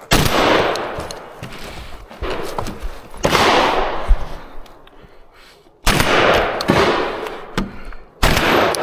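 Benelli M4 12-gauge semi-automatic shotgun fired four times, a shot every two and a half to three seconds, each blast followed by a long echoing decay.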